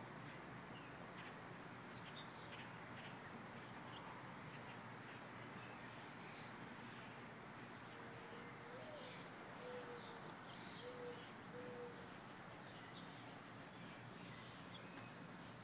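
Faint backyard ambience with scattered short high bird chirps, and a low four-note hooting call from a distant bird about halfway through, the first note sliding upward.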